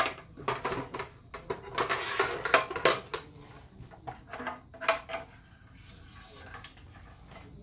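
Metal clinking and knocking as small align motors in metal mounting blocks are worked loose and lifted off a sheet-metal chassis: a quick run of clicks and clatter over the first three seconds, a few more knocks around five seconds in, then quieter handling.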